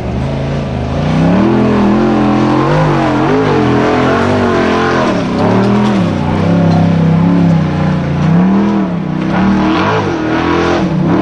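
Formula Offroad buggy's race engine revving hard on a steep sand-hill climb. The pitch rises and falls again and again as the throttle is worked.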